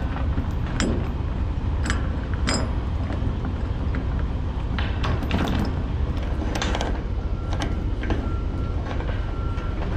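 Ratchet binder and steel load chain being worked to tighten a chain over steel I-beams: scattered metal clicks and clanks, several of them, over a steady low rumble.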